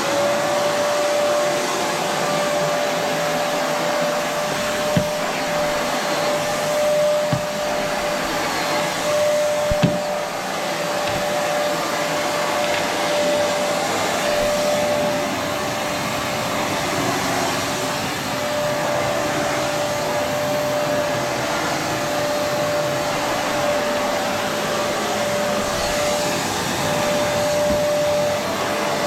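Vacuum cleaner switched on, its motor rising to speed and then running steadily with a high whine as it is pushed over carpet. A few light knocks come between about five and ten seconds in.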